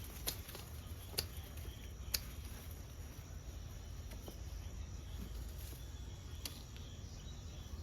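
Outdoor garden ambience with insects chirring steadily in the background, broken by a few sharp clicks, four in all.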